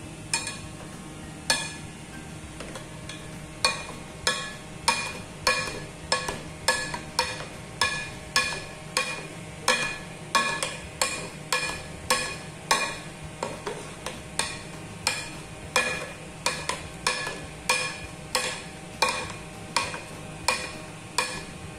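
A metal fork crushing boiled potatoes in an aluminium saucepan. It knocks against the pot with short ringing metallic clinks, at first only now and then and from about four seconds in at a steady two or so a second.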